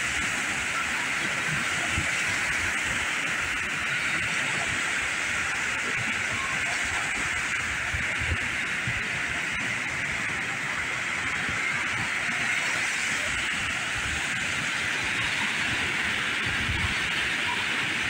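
Ocean surf breaking and washing up the beach: a steady rushing hiss.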